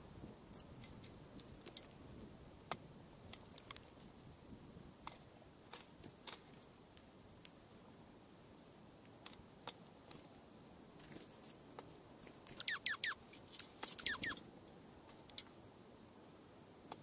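Dark-eyed junco pecking seed from a metal tray feeder: scattered light clicks. Two brief high chips, and about 13 seconds in, a quick run of several short falling bird notes.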